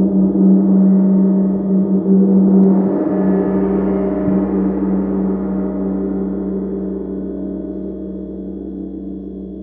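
Gong ringing with a long sustain of many overtones, the higher ones swelling about three seconds in, then slowly dying away.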